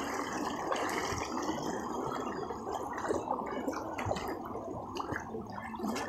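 Water sloshing and swirling around the legs of several people wading through floodwater, a steady churning splash.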